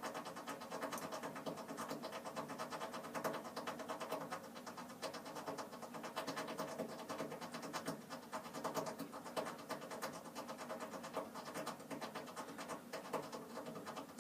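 Boiler making a continuous, irregular crackling and ticking over a steady hum.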